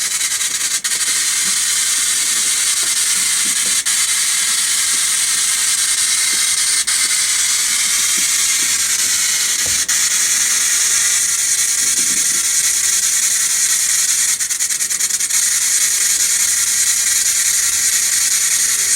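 Steady loud static hiss from a spirit-box (ghost box) app, with a few faint clicks and a short run of clicks about fourteen seconds in.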